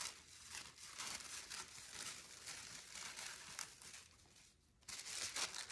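A sheet of tracing paper rustling and crinkling in irregular bursts as it is handled, with a brief lull near the end.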